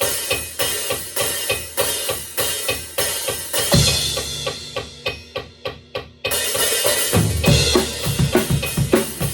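Drum kit playing a driving rock beat with kick, snare and cymbals over a click track. About four seconds in, the beat stops on a hit that rings out and fades while the click keeps ticking; the drums come back in about two seconds later with heavy low hits.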